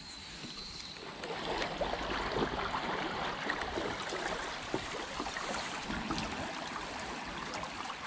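Fast, shallow river water rushing and babbling around a stand-up paddleboard running a riffle, with many small splashes; it grows louder about a second in.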